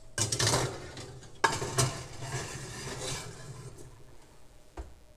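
Glass baking dish set onto an oven's wire rack and slid in, scraping and clinking against the metal bars, with a couple of sharp knocks about a second and a half in.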